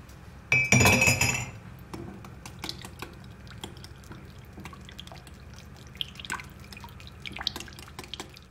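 An egg-and-oil sauce being beaten in a bowl with a kitchen utensil: many light clicks of the utensil against the bowl and wet liquid sounds, with a louder ringing clink about half a second in.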